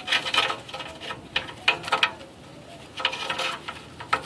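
Irregular clicks and scrapes as an oxygen sensor is unscrewed from the exhaust pipe.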